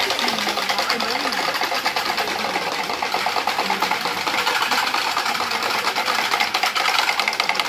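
A fast, even rattle of clicks that runs on without a break, with the voices of a crowd faintly underneath.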